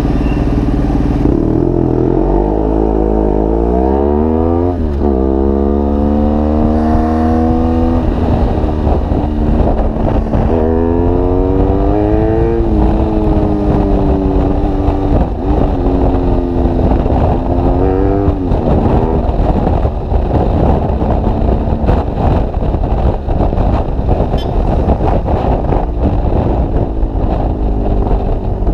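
BMW R1200GS Adventure's boxer twin through an SC Project GP aftermarket exhaust, idling and then accelerating hard: the engine note rises and drops back sharply at each of several upshifts. As speed builds toward the end, the engine note is drowned out by wind rushing over the microphone.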